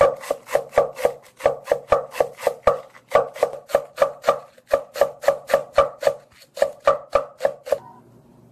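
Kitchen knife finely shredding cabbage on a wooden cutting board: quick, even chops about four a second, stopping shortly before the end.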